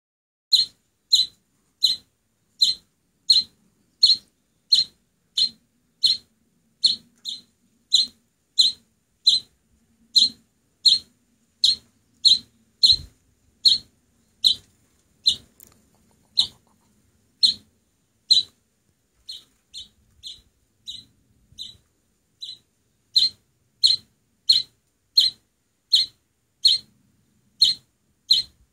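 An oriental greenfinch nestling, nearly fully feathered, giving short high chirping calls over and over, about three every two seconds. The calls turn softer for a few seconds past the middle, then loud again.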